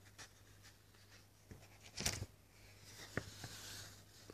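Faint rustle of paper and a few soft clicks as a page of a printed book is handled and turned, loudest about two seconds in, over a low steady hum.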